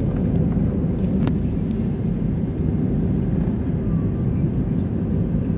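Jet airliner taxiing: a steady low rumble of its engines at taxi power, with a short click about a second in.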